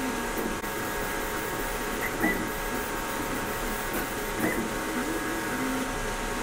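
Anycubic Kobra S1 CoreXY 3D printer printing. Its stepper motors give short tones that step up and down about once a second as the print head moves, over the steady hiss of its cooling fans.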